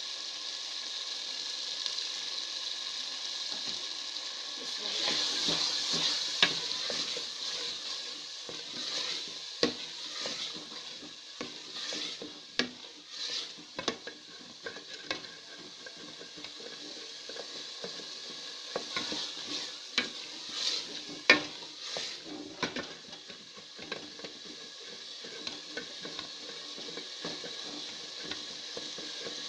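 Potato and pea curry sizzling in a metal pot as a wooden spoon stirs it, with a steady hiss and scattered knocks of the spoon against the pot. The loudest knock comes about two-thirds of the way through.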